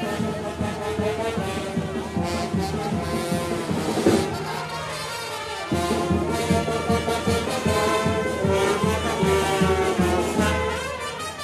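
Street brass band playing a lively tune, trombones and trumpets over a steady drum beat. The drums drop out for about a second and a half near the middle, then come back in louder.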